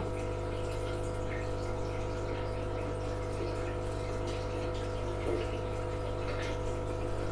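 Aquarium pump humming steadily with a faint wash of moving water.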